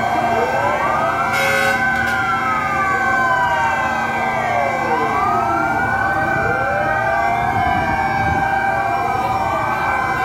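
Several fire truck sirens wailing at once, their rising and falling pitches overlapping over a few steady held tones. A brief horn blast cuts in about a second and a half in.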